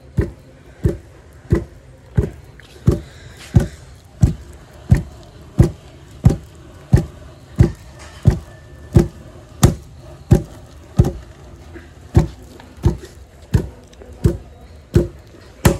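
Wooden dhenki, a foot-operated rice-pounding lever, thudding steadily about one and a half times a second as its pestle head drops into the pit, pounding soaked atap rice into flour.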